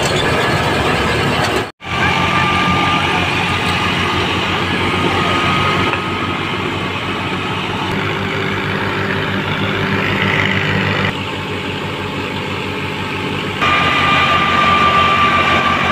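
Fiat 480 tractor's three-cylinder diesel engine running steadily under load, driving a wheat thresher through its PTO shaft, mixed with the thresher's hum and rattle. A steady high whine comes and goes, and the mix changes abruptly several times.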